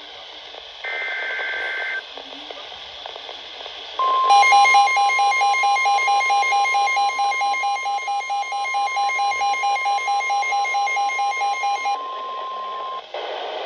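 NOAA Weather Radio emergency alert signalling. About a second in comes a one-second burst of the warbling two-tone SAME digital data code. From about four seconds in, the steady 1050 Hz warning alarm tone sounds for about nine seconds, with a receiver's rapid pulsing alert beeps over most of it.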